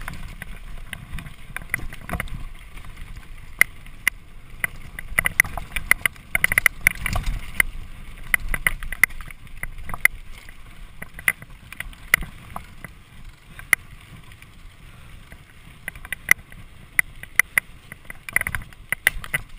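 Mountain bike descending a rough dirt forest trail: tyres rumbling over the ground, with frequent sharp rattles and clicks from the bike as it bounces over bumps, and wind buffeting the microphone.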